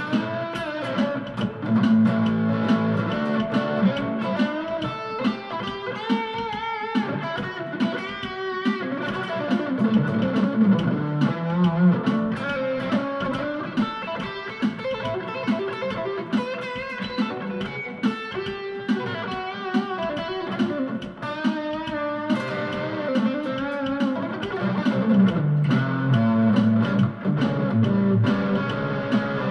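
PRS electric guitar played through a Roland Cube-10 amp: a busy lead line of single notes, many of them bent and shaken with vibrato.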